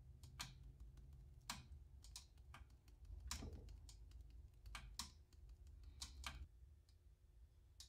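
Faint, scattered light clicks and taps, about a dozen at irregular intervals, from small things being handled on a workbench. A faint low hum lies under them.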